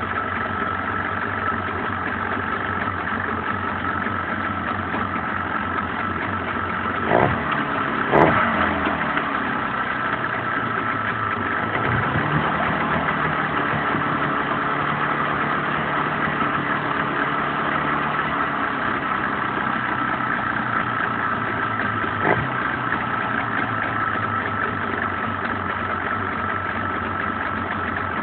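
Boat engine running steadily at idle, with a few sharp knocks about seven and eight seconds in and one more near twenty-two seconds; its pitch rises a little about twelve seconds in.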